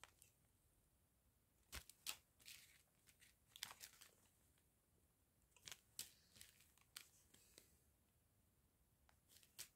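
Small clear plastic zip-lock bags of diamond-painting drills crinkling faintly as they are handled, in short scattered crackles with near silence between them.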